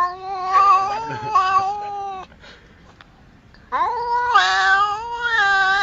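A cat yowling: two long, drawn-out, wavering calls. The first breaks off about two seconds in, and after a short pause the second starts and is still going at the end.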